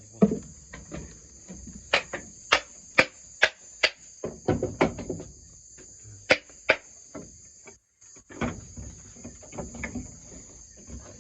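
Hammer blows, a run of sharp knocks about two to three a second with pauses between runs. A steady high chirring of crickets runs underneath.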